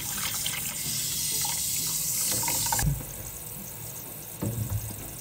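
Handheld shower head spraying water onto a kitten in a shallow basin, a steady hiss that is shut off suddenly about three seconds in, leaving only quieter sounds.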